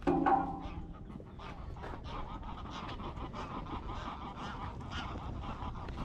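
Many waterbirds calling together across a wetland: a dense, steady chatter of short overlapping calls.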